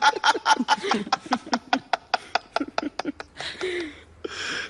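Hearty laughter in quick repeated bursts from being tickled, thinning out after about two seconds into breathy gasps near the end.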